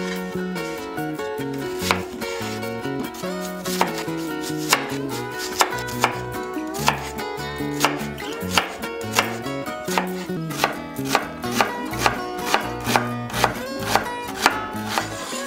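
Chef's knife chopping an onion on a wooden cutting board: sharp knocks about a second apart at first, quickening to about two a second in the second half, over background music.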